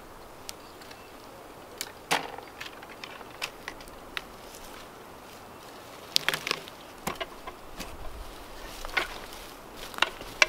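Scattered knocks, clicks and rustles of handling work at a felled log: a chainsaw that is not running is set down on the log, and there are footsteps in grass and leaf litter and knocks from a wooden-handled pole. The sharpest knocks come about two seconds in, around six seconds, and near the end.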